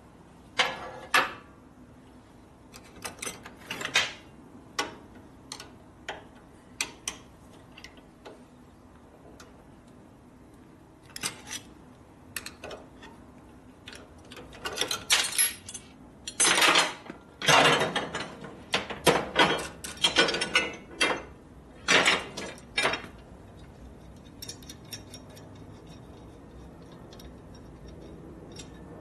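Loose metal hardware and hand tools clinking and clanking as washers, spacers and bolts are handled and a motorcycle crash bar is fitted, in irregular sharp knocks with a busy cluster around the middle.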